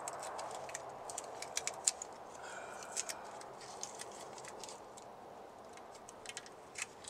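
Light, irregular metal clicks and taps from hands working on fittings and hoses at an engine block, the sharpest about two seconds in, over a faint steady hiss.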